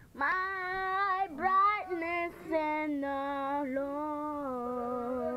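A young girl singing unaccompanied in a wavering voice: a few short phrases, then one long held note from about halfway in that slowly sags lower.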